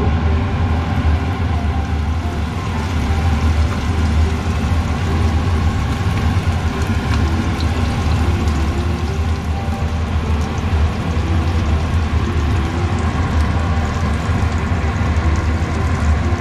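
Kitchen range hood ventilation fan running loudly with a steady low drone, over the sizzle and light crackle of battered Japanese whiting deep-frying in hot oil.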